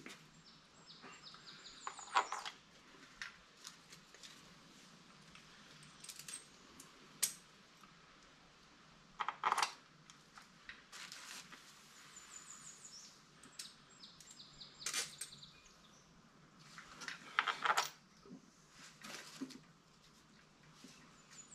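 Scattered light metallic clicks and clinks, a few seconds apart: small bolts and parts being handled and fitted into an outboard's water pump housing by hand.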